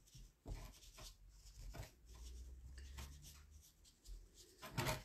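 Faint rubbing and light scuffing of a sponge working acrylic ink into the crackles of a glazed ceramic figurine, with a few light clicks. A low hum comes in briefly in the middle, and there is a louder knock near the end.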